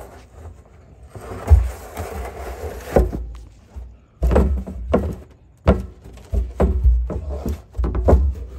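A goat butting and shoving a hollow plastic barrel around its pen, the barrel knocking against the metal pipe rails. A scraping rustle about a second in gives way to a quick, irregular run of loud hollow knocks and thumps.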